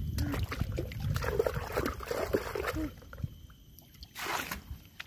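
Water sloshing in a plastic bait bucket, then tipped out in a brief splashing pour about four seconds in.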